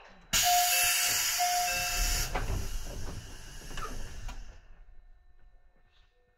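A sudden loud hiss of compressed air venting from a 211-series electric train's air system. It is strongest for about two seconds, then fades away over the next two, with a thin whistling tone in it twice early on.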